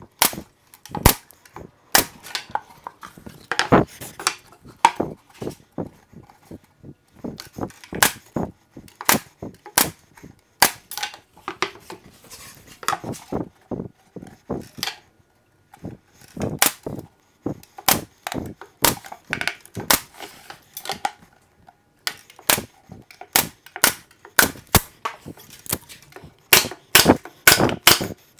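Pneumatic brad nailer firing brads into 3/4-inch particle board: sharp shots in quick, irregular runs with short pauses between, the longest about halfway through.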